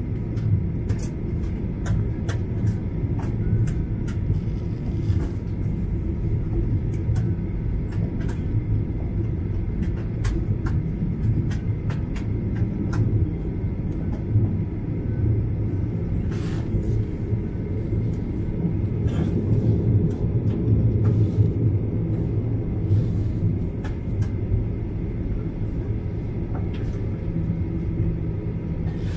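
Cabin noise of a Boeing 737-800 taxiing onto the runway: the CFM56 engines running at idle as a steady low rumble with a faint steady whine, and scattered light clicks and knocks through the airframe.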